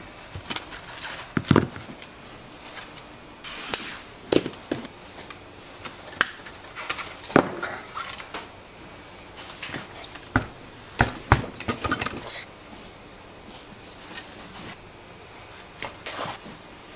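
Pliers and the thin metal ribs of an umbrella frame clicking and clinking at irregular intervals as the frame is worked on by hand in a rib repair, with a short rattling run of clinks about eleven seconds in.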